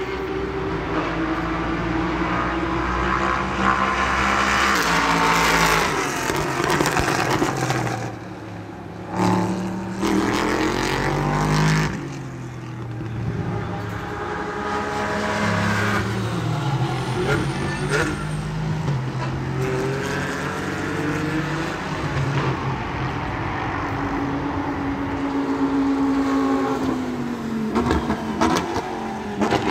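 Racing car engines running hard, their pitch rising and falling over and over as they rev up and back off.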